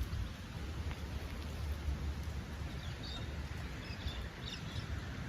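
Outdoor ambience: a steady low rumble and hiss, with short, faint bird chirps starting about halfway through.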